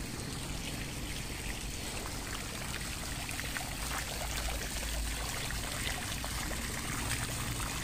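Small garden fountain's single jet splashing steadily into its round pool.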